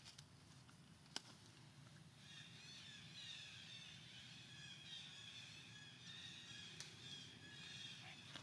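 Faint high-pitched chirping of small birds, many short calls overlapping, starting about two seconds in, with a single sharp click about a second in.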